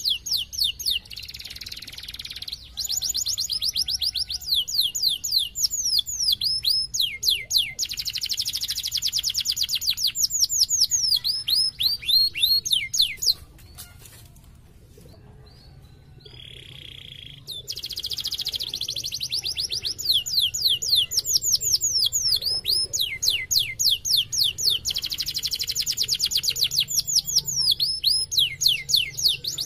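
Domestic canary singing in full song: long rolling trills of quick downward-sweeping notes repeated many times a second. There is a break of a few seconds about halfway through, with one short buzzy note near its end.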